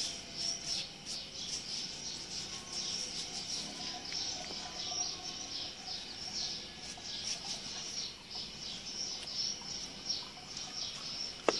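Dense, rapid high-pitched chirping from small birds or insects in the background, many short chirps a second, with a single sharp click near the end.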